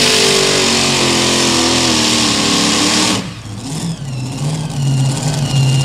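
Supercharged multi-engine modified pulling tractor at full throttle under load: a loud roar whose engine note slowly sinks as the sled bogs it down. About three seconds in the throttle is chopped at the end of the pull, and the roar drops suddenly to a lower engine rumble with a faint whine that rises and falls.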